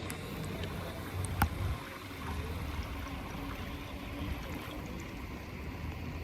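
Pool water gurgling and lapping, with a low rumble of wind on the microphone and one sharp click about a second and a half in.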